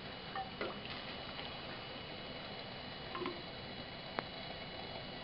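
Quiet room tone with a few faint taps and clicks as the heat-engine apparatus is handled, the sharpest click about four seconds in.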